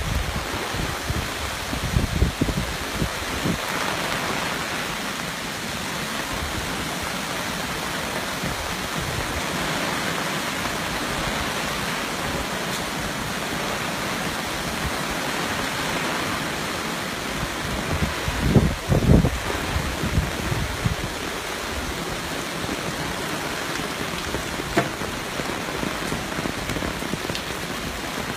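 Steady rushing of a flood-swollen creek running high and fast. A few low thumps come about 2 seconds in and again around 18 to 20 seconds.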